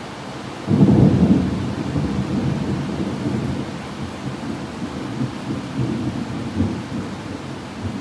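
A peal of thunder breaks suddenly about a second in and rolls on as a low rumble that slowly fades over the next several seconds, over the steady hiss of heavy rain.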